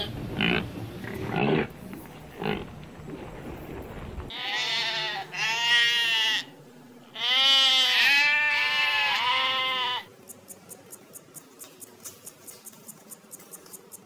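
Sheep bleating: several long, wavering bleats. They are followed by an insect's chirping, a quiet, even series of short ticks at about four a second.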